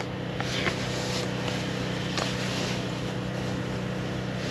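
A steady low mechanical hum, with a few faint light clicks.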